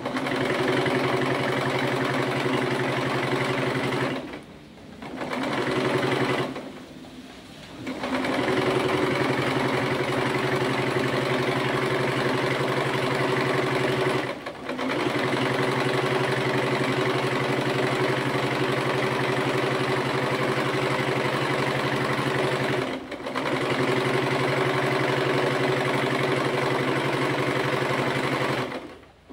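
Portable Singer sewing machine stitching shirring into fabric, running at a steady speed with a rapid needle beat, and stopping briefly four times before starting up again.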